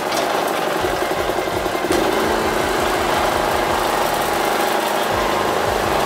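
WAKITA HPG2300is 2.3 kVA inverter generator's small four-stroke gasoline engine running steadily just after a pull-start, with the economy switch off so it runs at full speed.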